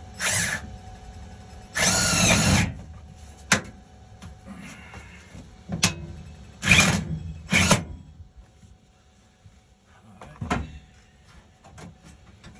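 Power drill running in several short bursts, the longest nearly a second, driving screws through the new sheet-steel floor pan to hold it in place.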